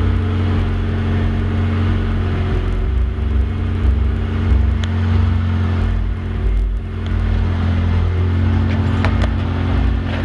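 Car-audio subwoofers playing loud bass-heavy music, the deep bass notes changing every fraction of a second.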